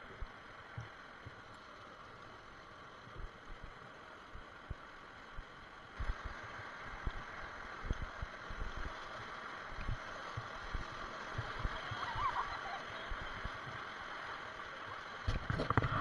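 River water rushing and gurgling around an inflatable raft, with scattered dull knocks against the raft. It grows louder about six seconds in as the raft runs into rougher water.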